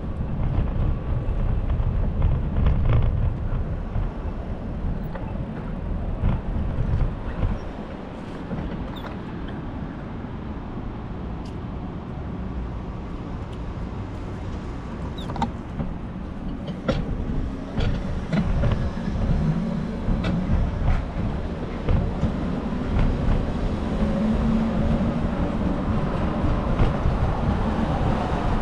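Wind buffeting the microphone of a moving bicycle, heard as a gusty low rumble over city traffic noise. There are a few light clicks and a passing vehicle's hum about two-thirds of the way through.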